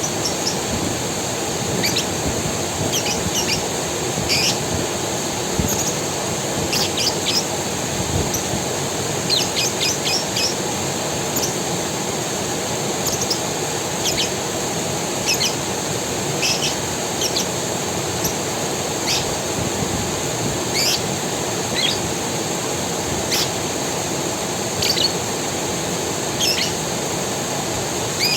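A forest creek running steadily, with small birds calling in short, sharp chirps scattered throughout.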